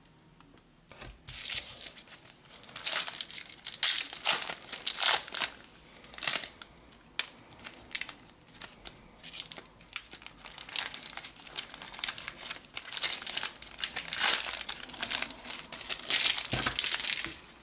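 Foil wrapper of a Panini Adrenalyn XL trading-card booster pack being torn open and handled, crinkling in a long run of irregular crackling rustles that starts about a second in.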